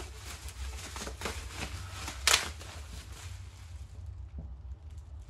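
Plastic bubble wrap crinkling and rustling as it is pulled off a rifle barrel by hand, with one louder burst about two seconds in. It quietens after about four seconds.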